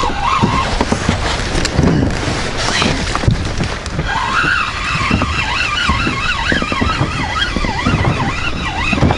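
Wind buffeting the microphone and choppy water slapping against an inflatable boat, with a wavering whistle rising and falling from about four seconds in.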